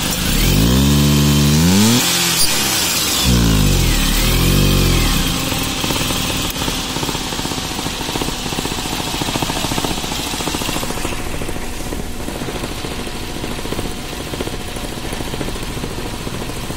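Maruti Suzuki Alto 800's three-cylinder petrol engine revved twice, its pitch rising and falling each time, then running on at idle with the air conditioning switched on. The mechanic says that under the AC load this engine is unstable and vibrates.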